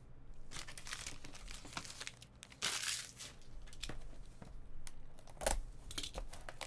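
Crinkling and tearing of the plastic shrink-wrap on a trading card pack as it is handled and opened: a run of irregular rustles, loudest about two and a half seconds in and again near five and a half seconds.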